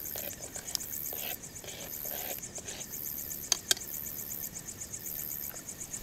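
A chorus of night insects keeps up a fast, evenly pulsing high trill, with a higher-pitched call coming and going above it. A little past halfway come two sharp clicks in quick succession.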